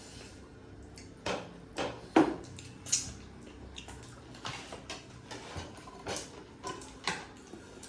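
Utensils clinking and knocking against dishes during a meal: several separate short clinks, the loudest about two seconds in.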